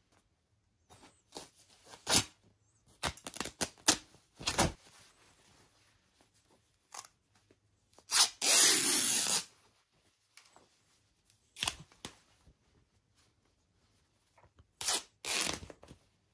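Gold satin dress fabric being ripped apart by hand: a series of short tearing rasps, one long loud rip about halfway through, and two more rips close together near the end.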